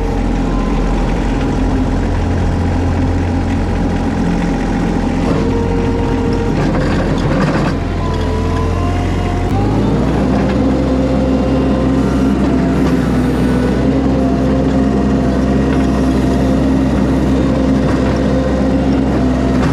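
Mini skid steer's engine running steadily under load, with a whining tone that slides up and down in pitch; the engine note changes about ten seconds in.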